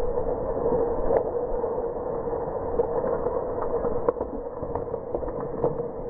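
Chainsaw running steadily as it cuts through a tree trunk, with scattered sharp clicks and knocks; the sound is muffled.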